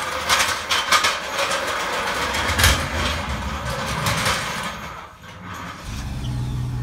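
Irregular metal clanks and knocks over a running vehicle engine. About five seconds in the clanking stops and a steady low engine hum remains.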